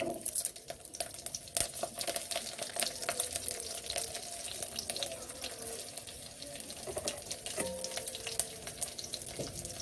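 Garlic cloves and mustard seeds frying in a little hot oil in a kadhai: a steady sizzle with frequent sharp crackles from the seeds.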